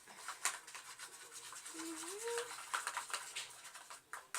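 Slime mixture being stirred and scraped in a container before the activator is added: quick, irregular scraping and rubbing strokes.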